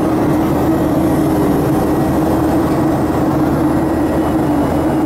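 Steady cabin drone of a jet airliner in flight: engine and airflow noise with a constant hum.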